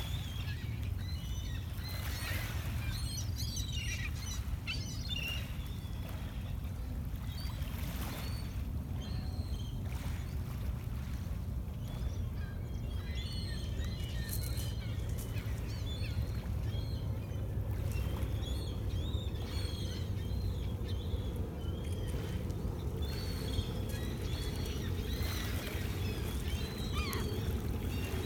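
Birds chirping and calling over a steady low rumble, with short soft clicks of small waves lapping at a pebble shore. The rumble grows a little fuller in the second half.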